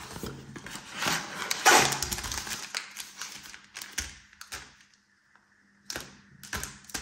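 Cardboard box flaps being folded open and foil-wrapped trading card packs pulled out and handled: a run of crinkles, rustles and clicks, loudest about two seconds in. It goes nearly quiet briefly, then a few light taps come near the end.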